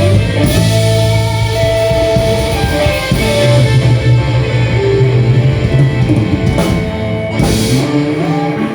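Live blues-rock band playing: electric guitar over a drum kit, with cymbal crashes about six and a half and seven and a half seconds in, then held notes near the end.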